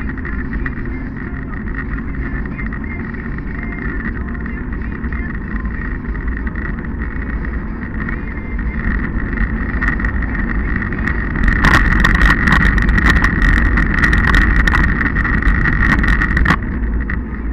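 Wind rushing over the microphone of a camera mounted on a moving bicycle, with road rumble and a steady high whine. About two-thirds of the way in it turns louder and rougher, with crackling buffets, then eases back a moment before the end.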